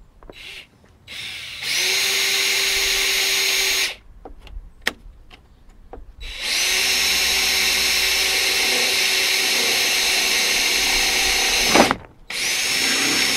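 Cordless drill with a 5 mm metal bit boring holes through a plastic fibreglass panel, in three runs: one of about two seconds, a longer one of about five seconds, and a short one near the end, with a couple of clicks in between.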